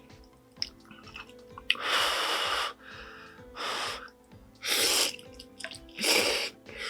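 Ramen noodles being slurped in four loud, hissy bursts, the first about a second long, over quiet steady background music.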